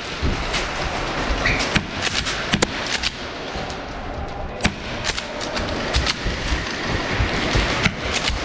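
Airsoft guns firing around an indoor arena: irregular sharp pops and clicks, some close and some distant, over a steady din that echoes through the large hall.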